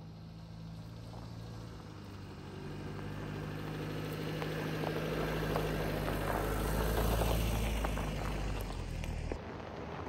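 Hyundai SUV driving slowly past on a dirt road: a low engine hum with tyres crunching over the dirt and pine cones, growing louder as it passes close, then cutting off abruptly near the end.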